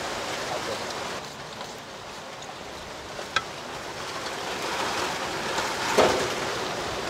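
Steady rushing hiss of strong wind. There is a single sharp click about three seconds in and a brief louder sound near the end.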